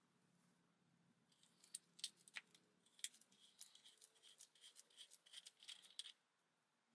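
Quick, uneven run of small metal clicks and scrapes as a part is worked loose from the gear housing of a 1960s Black & Decker D520 drill. It starts about a second in and stops shortly before the end.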